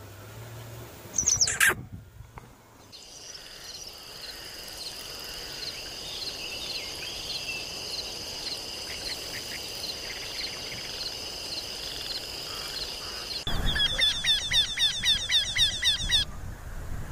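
Small songbirds calling: a single sharp falling chirp, then a steady high trill with regular pips, then a loud, fast run of repeated high chirps near the end.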